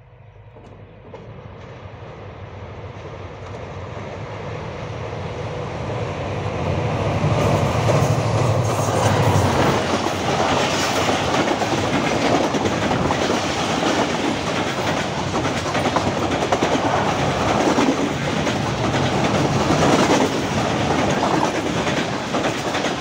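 An express passenger train hauled by an HGMU-30 diesel locomotive approaches and passes at about 106 km/h over a steel truss rail bridge. A low engine rumble swells over the first eight seconds or so, then the coaches go by close with a loud, steady rattle and a repeated clatter of wheels over the rails.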